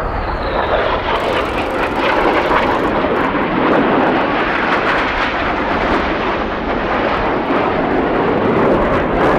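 A formation of BAE Hawk T1 jets flying past, their Rolls-Royce Turbomeca Adour turbofans making a loud, steady rushing jet noise, with a faint whine falling in pitch in the first second.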